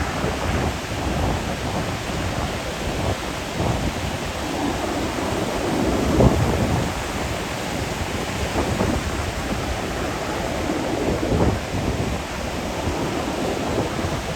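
Ocean surf breaking on a beach, a steady wash of noise with uneven rumbling surges of wind on the microphone, the loudest about six seconds in.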